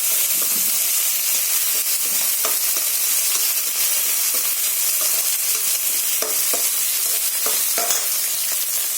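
Chopped tomato, small onions and dried manathakkali berries sizzling in oil in a kadai, with a steady high hiss. A spoon stirs and scrapes through them a few times.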